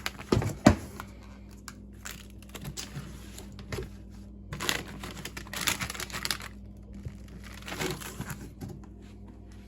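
Fireworks packaging being handled: a couple of knocks in the first second, then bouts of crinkling and rustling from the cardboard and plastic wrap as the boxes are shifted.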